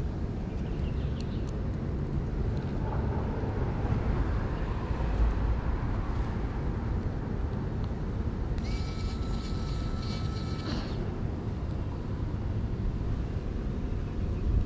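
Steady low rumble of outdoor background noise. About nine seconds in, a high hiss with a steady tone runs for about two seconds and then stops.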